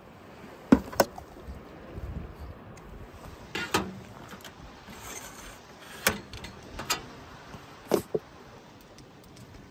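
Camp gear being handled: a metal lantern-hanging pole being set up and a rechargeable lantern being handled, giving about eight sharp clicks and knocks at uneven intervals.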